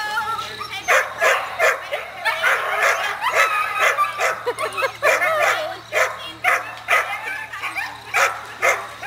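A group of Siberian huskies in harness barking, yipping and whining in a dense, nonstop chorus of short high calls. This is the excited clamour of sled dogs waiting to pull at the start of a run.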